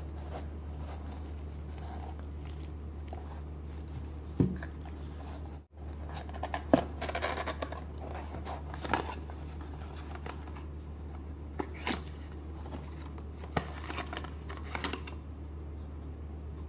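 Hands handling a cardboard product box, its foam insert and packed accessories: scraping, rustling and sharp clicks as parts are lifted out and a cable is pulled free, over a steady low hum.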